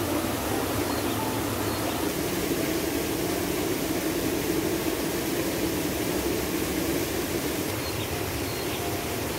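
Steady rush of a shallow stream flowing over rocks.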